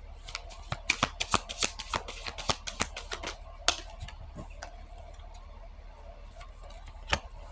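A deck of reading cards being shuffled by hand: a quick run of card snaps and flicks over the first few seconds, then a single card tap near the end.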